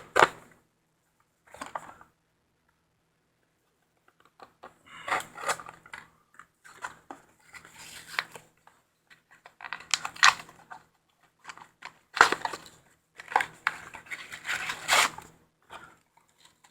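Packaging being opened by hand: irregular tearing, crinkling and scraping of a small box and its wrapping, in quick scratchy bursts after a brief lull.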